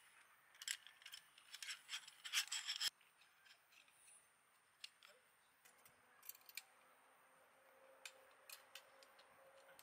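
Cloth stuff sack rustling as a pole is drawn out of it, then a few light clicks of metal as the pole's sections and a folding wire stand are fitted together.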